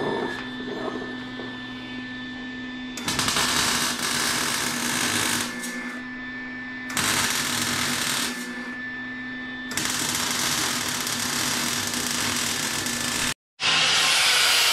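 MIG welder laying beads on the steel truck frame, three crackling bursts of a few seconds each over a steady low hum. Near the end an angle grinder runs against the frame steel with a steady high whine.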